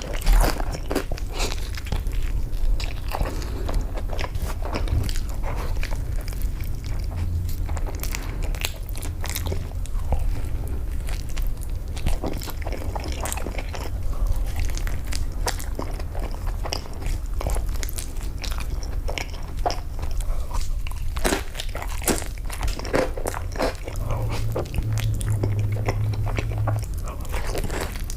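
Close-miked eating sounds: crunchy bites and wet chewing of fast food, a dense run of crackles and snaps throughout.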